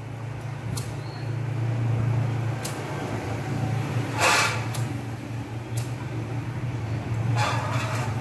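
A few sharp clicks and two short hissing bursts, about four and seven and a half seconds in, from a lighter being worked at a small portable stove, over a steady low hum.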